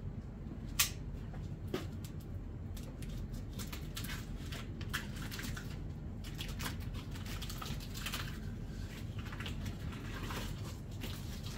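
Cardboard box being opened by hand: many short crinkling, rustling and scraping sounds of the flaps and packing, after one sharp click about a second in.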